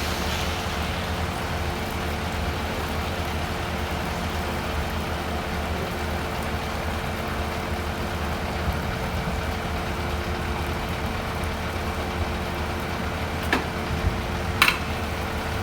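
Fire apparatus's diesel engine running steadily at the curb, a low hum with a constant tone over it. Two short knocks and a brief squeak come near the end.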